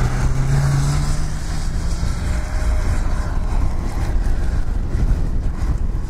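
Lada Niva's engine revving hard as it takes a run at a snowy hill climb, its pitch rising over the first couple of seconds and then fading as the car pulls away up the slope. After that, a steady low rumble of wind on the microphone is left.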